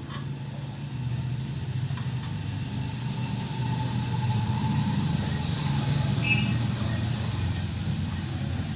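A motor vehicle's engine running with a steady low hum, growing louder through the first six seconds and easing slightly near the end.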